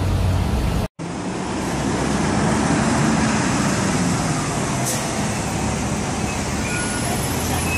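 Steady road traffic noise, an even hum of passing vehicles, broken by a brief dropout about a second in.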